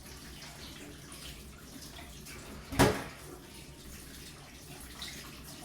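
Faint water sounds from washing a catfish by hand, with one sharp knock a little under three seconds in.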